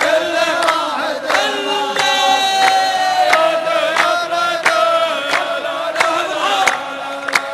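A group of voices chanting a drawn-out wordless refrain in chorus. Sharp beats fall about every two-thirds of a second under the chant, keeping the rhythm.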